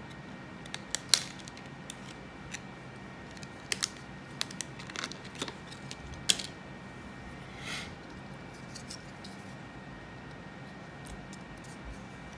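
Scattered light clicks and taps of small plastic and electronic parts being handled: a memory card and an iFlash Solo adapter board picked up and set down on a work mat. The clicks fall mostly in the first half, the sharpest about a second in.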